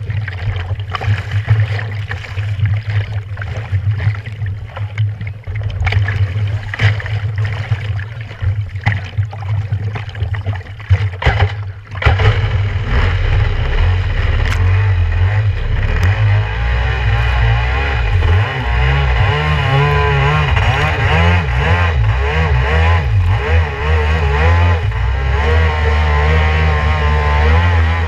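Kawasaki 650SX stand-up jet ski's two-stroke twin engine idling with water splashing against the hull, then opening up about twelve seconds in and running loud, its pitch rising and falling as the throttle is worked while the craft planes through spray.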